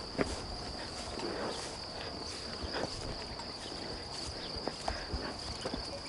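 A steady, high-pitched insect chorus, with a few faint irregular thuds of a horse walking on grass.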